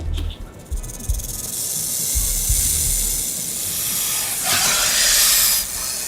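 A hiss that builds steadily and is loudest about five seconds in, over a low rumble that dies away about three seconds in.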